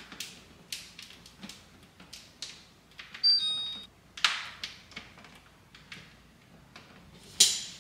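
Light clicks and taps of long fingernails and fingertips on hard plastic as a glued piece is pressed and held on a refrigerator door liner, with a brief loud sound carrying a few steady tones about three seconds in.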